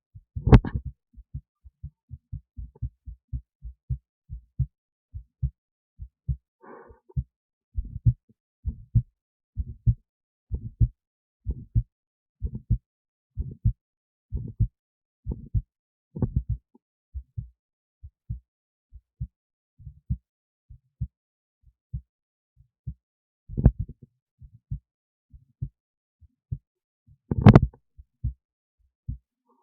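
Human heartbeat picked up through an esophageal stethoscope resting in the esophagus next to the heart: a steady lub-dub, paired low thumps about once a second. A few louder, higher noises stand out over the beats, the loudest near the end.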